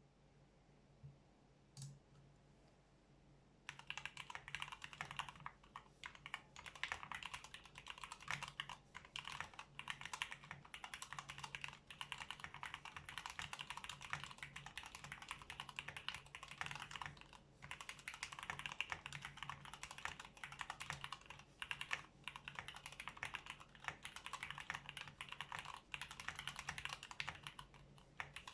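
Fast typing on a Tofu65 mechanical keyboard with a brass plate and stock, unlubricated Cherry MX Black Hyperglide linear switches: a dense, steady run of key clacks that starts about four seconds in, after a couple of lone clicks. The owner says these unlubed switches are scratchy and have noticeable spring ping.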